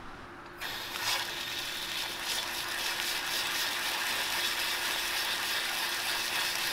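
Water from a garden hose rushing through a check valve and spraying onto concrete: a steady hiss that starts about half a second in, with a faint steady tone beneath it. The valve is being flushed to test whether it sticks, suspected to be jammed by trash.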